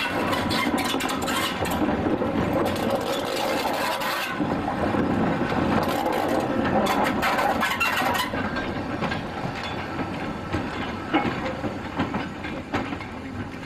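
A train of withdrawn steam locomotives and their tenders rolling slowly past on the rails, with a dense clanking and knocking of wheels, running gear and couplings. It eases off somewhat near the end as the last tender goes by.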